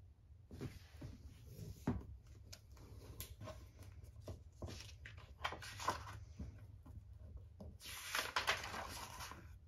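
A hardcover textbook being handled: its cover opened and pages turned, giving soft knocks, taps and paper rustling, with a longer stretch of page rustling about eight seconds in.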